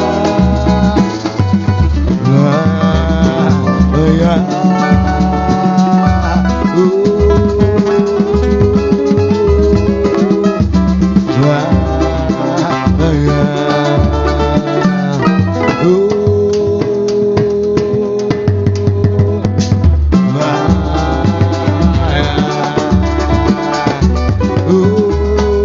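Samba group playing an instrumental passage: guitar and other plucked strings over a stepping bass line and percussion keeping the samba beat.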